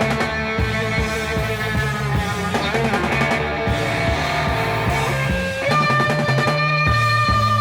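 Psychedelic rock band playing an instrumental passage: an electric guitar plays long, sustained, bending lead notes over bass and drums. About two-thirds of the way in, the guitar settles on a new long held note.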